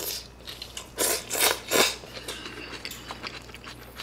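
A man slurping rice noodles (pho) from a bowl in three quick, noisy pulls about a second in, followed by softer chewing and small mouth and chopstick clicks.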